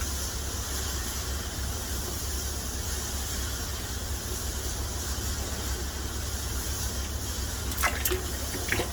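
Steady workshop background hiss over a low hum, with a few sharp clicks near the end.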